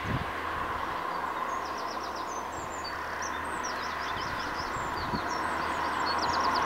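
A freight train approaching a level crossing on electrified track, its noise slowly growing louder, with birds chirping throughout.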